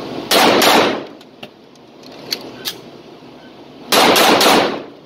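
Arex Rex Alpha 9mm pistol firing: a quick pair of shots, then about three seconds later a fast string of three more. Each string echoes off the concrete walls of an indoor range.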